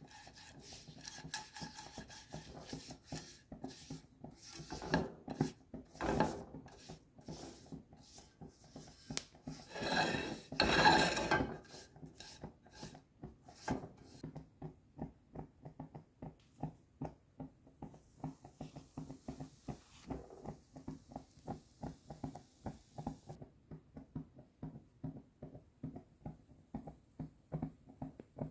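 Silicone brush rubbing oil across a nonstick frying pan in quick repeated strokes, loudest about ten seconds in. Softer, evenly spaced ticks follow in the second half.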